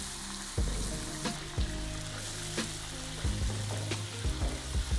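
Chunks of beef sizzling steadily as they sear in an aluminium pot over high heat, with several sharp knocks of a utensil against the pot as the meat is stirred.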